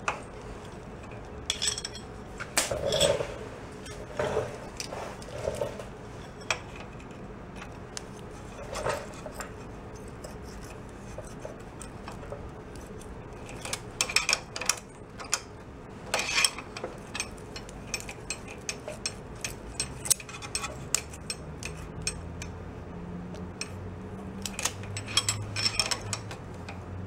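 Irregular metallic clicks and clinks of a wrench, screwdriver and feeler gauge working the valve rocker arms of an air-cooled VW Beetle engine while the valve clearances are adjusted, with some brief ringing clinks a few seconds in.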